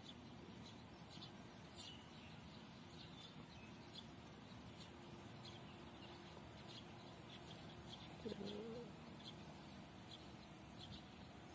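Near silence outdoors, with faint, scattered short bird chirps and one brief low pitched sound about eight seconds in.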